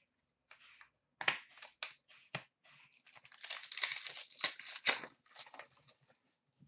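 A hockey card pack's wrapper being torn open and crinkled, with a few sharp clicks and rustles of cards being handled at first and a dense crinkling stretch in the middle.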